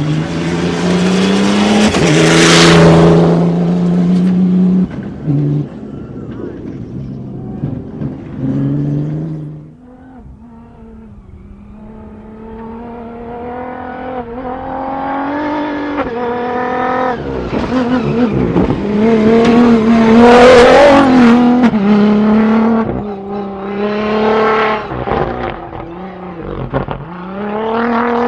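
Rally-raid cars running at full throttle and passing close by, with gear changes and lifts off the throttle. One goes past loudly about two seconds in. Another builds from quiet around ten seconds in to a loud pass about twenty seconds in, then revs rise and fall near the end.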